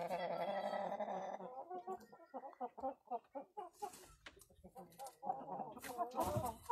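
Brahma chickens calling. A long drawn-out call fades about a second and a half in, followed by a run of short, quick clucks, then a louder burst of calling near the end.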